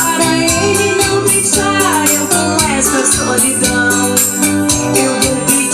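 Upbeat popular song with a steady beat and bass line.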